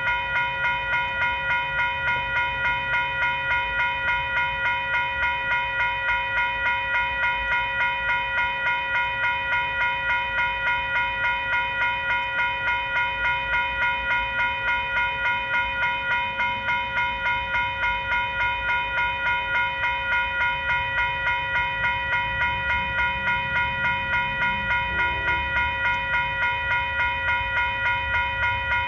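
Nathan K5LA five-chime air horn on a VIA Rail locomotive sounding one long unbroken blast, with a slight regular pulsing, over the low rumble of the train.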